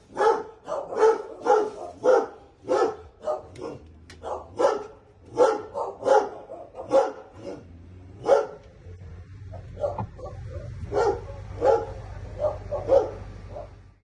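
A dog barking over and over, about one to two barks a second, with a faint low hum underneath in the second half.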